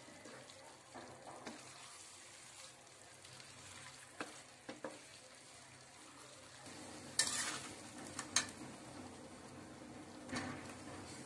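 Chicken and vegetables in sauce sizzling in a frying pan while being stirred with a wooden spatula, with a few knocks and scrapes of the spatula against the pan, the loudest about seven and eight seconds in. Near the end, boiled penne is tipped into the pan from a colander.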